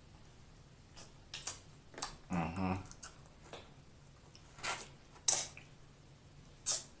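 Close-miked mouth sounds of eating a seafood boil: a scattering of short wet lip smacks and sucks as food and fingers are sucked clean, with a short hummed "mm" about two and a half seconds in.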